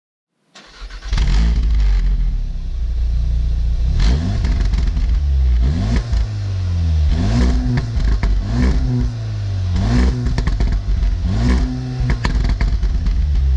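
Volkswagen Golf R's 2.0-litre turbocharged four-cylinder engine and exhaust: it starts up about half a second in, settles to a fast idle, then is revved several times with sharp crackles as the revs fall.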